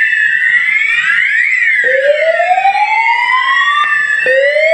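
Fire alarm sounders on a Ravel fire alarm panel sounding the evacuation tone: several sweeping siren tones overlap, with a rising whoop that starts again about every two and a half seconds, in the gap between voice evacuation messages.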